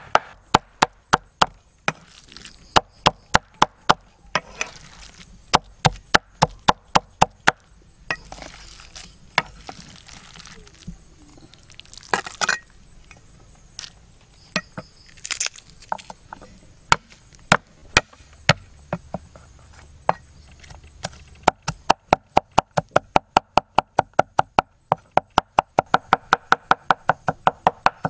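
A cleaver mincing raw meat on a wooden chopping board: quick runs of sharp chops with short pauses between them, fastest near the end at about four to five strikes a second.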